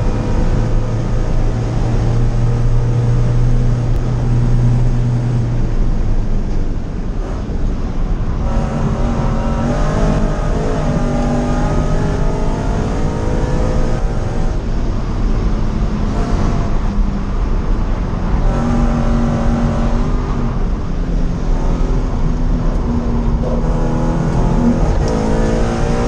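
Supercharged Subaru BRZ's flat-four engine driven hard on a race track, heard from inside the cabin. It holds a steady drone for the first few seconds, then repeatedly climbs in pitch and drops back as the driver accelerates, shifts and lifts through the corners.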